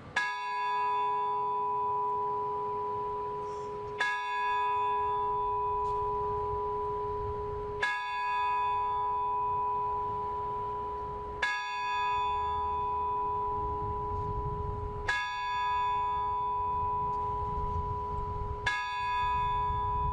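A single large bell tolling slowly: six strikes of the same note, about four seconds apart, each ringing on until the next. It is a memorial toll for shooting victims.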